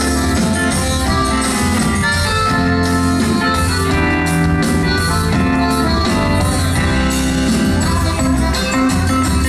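Live band playing Brazilian northeastern music: held melody notes over a steady percussion beat.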